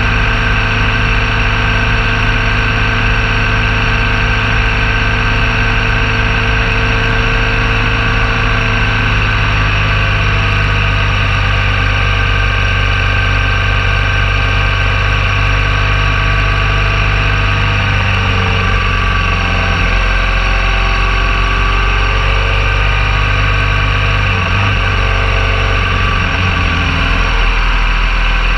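BMW R1200 GS Adventure's boxer-twin engine running steadily, its note changing about two-thirds of the way through and again near the end.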